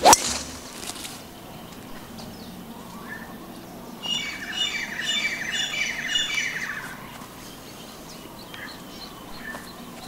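A golf club striking the ball off the tee, one sharp crack at the very start. From about four seconds in, a bird calls in a rapid run of notes for about three seconds.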